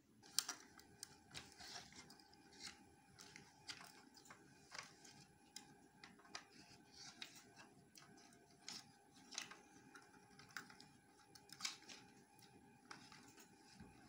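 Faint, irregular clicks and taps of a pink plastic toy makeup case being handled on a table by small hands.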